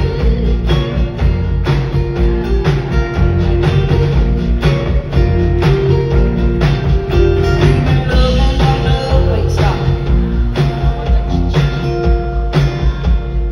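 Live band playing with a steady drum-kit beat and guitars, recorded from among the audience.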